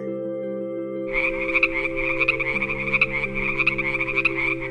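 A frog croaking in a quick, continuous run of pulses. It starts about a second in and stops near the end, over a steady background music drone.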